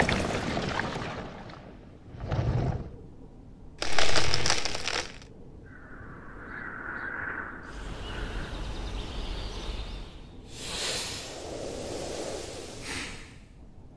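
Film sound effects: a loud rumble fading out, then two short sharp cracking bursts, the second and louder about four seconds in. Later a faint steady hum and softer noisy swells follow.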